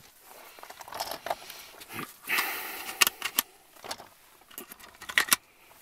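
Handling noise of a Molot Vepr-12 12-gauge shotgun's box magazine and shotgun shells: scattered metallic clicks and clinks, with a short rattling rustle about two seconds in.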